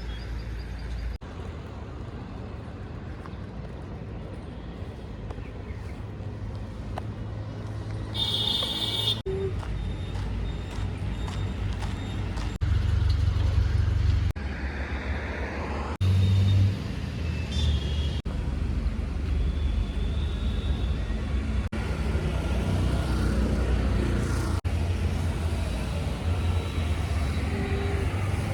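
Road traffic noise: a steady low rumble of engines and passing vehicles, cut together from several short clips, with a short high beep about eight seconds in.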